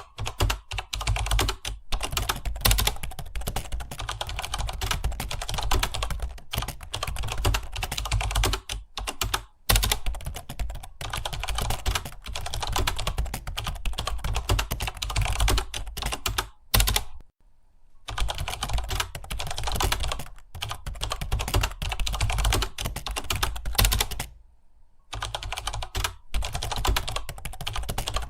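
Fast continuous typing on a computer keyboard, a rapid stream of keystroke clicks that stops briefly twice, about seventeen and twenty-four seconds in.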